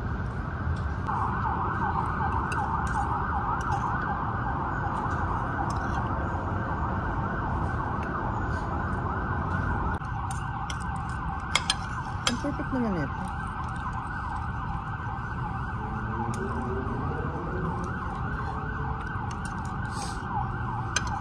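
A continuous wavering, siren-like wail that sets in about a second in, over a steady low rumble of wind on the microphone. A couple of sharp clinks of cutlery on a plate come near the middle.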